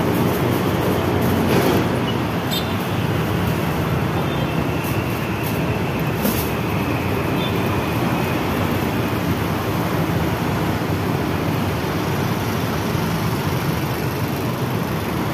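Steady road traffic noise from passing vehicles, with a few brief crinkles of aluminium foil being rolled and folded around a kebab wrap.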